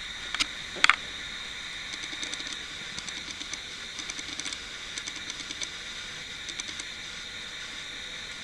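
An OO gauge model Class 66 locomotive hauling a CMX track-cleaning wagon around the helix: a steady high hum and hiss with clusters of light ticking from the wheels on the track. There are two sharp clicks about a second in.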